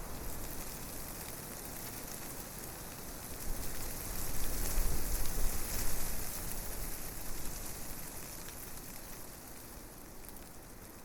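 Wind blowing through forest trees, a steady hiss of rustling leaves with a low rumble beneath. A gust swells about four seconds in, then slowly dies down.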